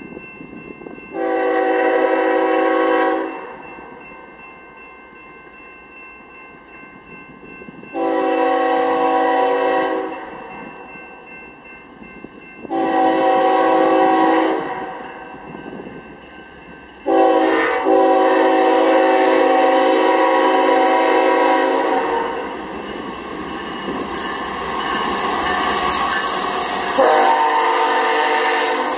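Diesel locomotive's multi-chime air horn sounding for a grade crossing: three blasts of about two seconds each and a fourth held about five seconds, over the steady ringing of the crossing bells. After that the train's wheels and cars rush past, with one more horn blast near the end.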